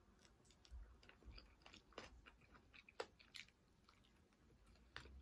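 A person chewing and biting food, with scattered sharp mouth clicks; the loudest comes about three seconds in.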